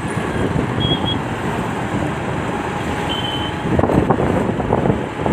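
Motorcycle riding along a highway: its engine and road noise run steadily with oncoming truck and car traffic. Two short high beeps, about a second in and about three seconds in.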